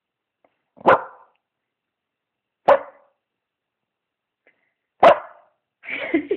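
British bulldog giving three short, single barks about two seconds apart, demanding attention, then a short rough noise near the end.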